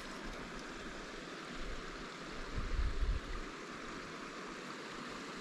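Steady rush of flowing water, with a brief low rumble of wind buffeting the microphone about two and a half seconds in.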